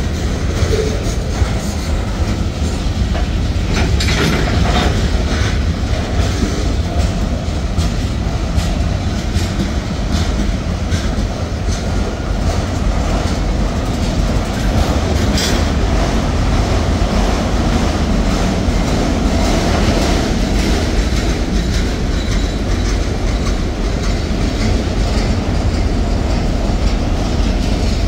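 Freight cars of a Norfolk Southern manifest train rolling past close by, covered hoppers and a tank car and then autoracks. Their wheels give a steady rumble and a clickety-clack over the rail joints.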